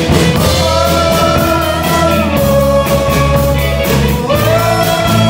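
Live rock band playing: electric guitar and bass under long held melody notes, with a steady high ticking beat.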